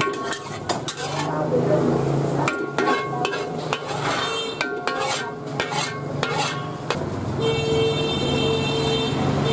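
Metal ladle scraping and knocking against a steel wok as fried rice is scooped out onto a plate: a run of sharp metallic scrapes and clinks. Near the end a steady pitched tone sounds for about two seconds.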